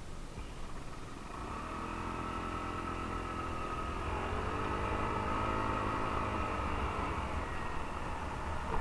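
A 125 cc scooter's single-cylinder engine pulling away and revving up, its pitch rising, dipping briefly about four seconds in, then rising again. Low wind rumble on the helmet-mounted microphone.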